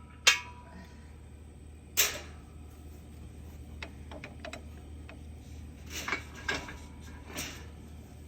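Metal knocks and clanks from a three-point quick hitch being shifted and lined up by hand. A sharp clank with a brief ring comes just after the start and another about two seconds in, then light clicks around four seconds in and a few more knocks near the end.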